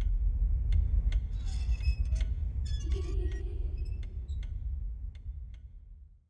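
Horror film trailer sound design: a low droning rumble with scattered faint ticks and glassy clinks. It fades away toward the end.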